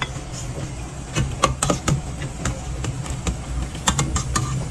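Irregular light clinks and knocks of kitchen utensils against a stainless steel pot and bowl, about a dozen, in two clusters, over a steady low hum.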